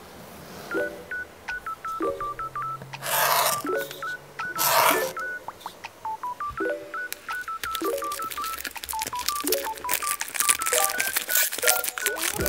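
Short beeping synth notes in a repeating melody, with low chords about every second. Under them, cardboard packaging is handled: two rustling swishes early on, then from about seven seconds in a run of crackling clicks as clear plastic wrap is peeled off the box.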